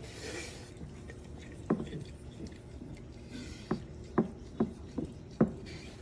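French bulldog licking out a ceramic pitcher: a run of short, wet tongue smacks against the inside, most of them in the second half, with a few snuffling breaths in between.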